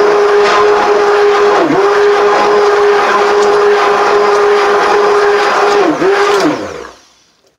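Electric immersion blender running steadily in thick white soap batter, its motor pitch dipping briefly twice as it bogs under the load. Near the end it is switched off and winds down in pitch.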